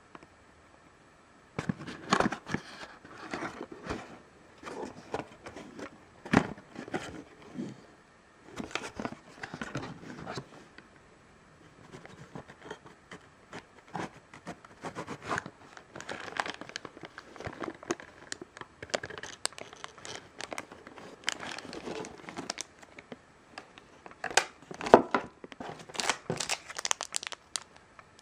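Toy packaging being handled: a cardboard box insert and clear plastic bags crinkling and rustling in irregular bursts, starting about a second and a half in.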